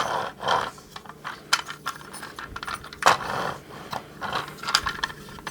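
Hard plastic toy vehicle parts clicking, rattling and scraping as its wheels are pushed down onto their mounting tabs and handled: a handful of separate sharp clicks.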